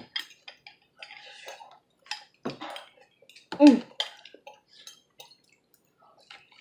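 Spoon clinking and scraping against a plastic container and a glass bowl, with wet mouth noises as a bowl is licked clean. A brief vocal sound comes about three and a half seconds in.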